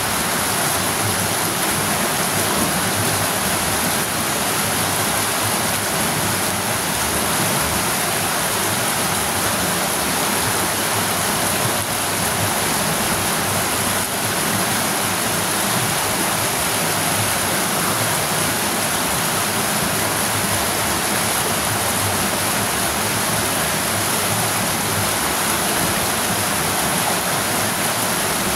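River water rushing over rocks in a small cascade, a steady splashing rush.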